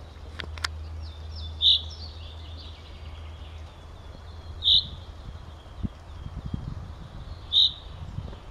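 Male common chaffinch giving a short, sharp call three times, about every three seconds, with fainter bird song between the calls over a low steady rumble.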